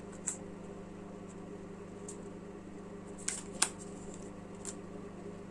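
Tarot cards being handled, giving a few light, sharp clicks and flicks, the strongest pair between three and four seconds in, over a steady low hum.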